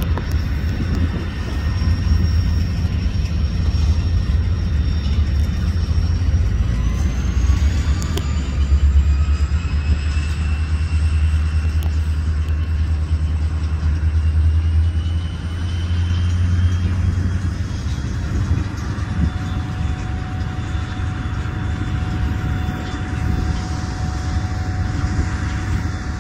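Freight train of covered hopper cars rolling past with a steady low rumble. A thin high whine rises in pitch several seconds in.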